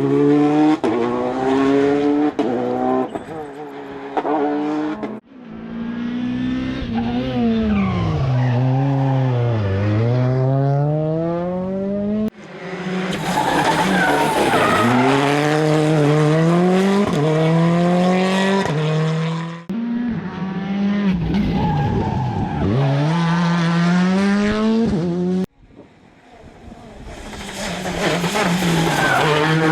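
Rally cars driven hard on a special stage, one after another in short clips that cut off suddenly. Each engine revs high and drops through gear changes, and its pitch falls as the car passes.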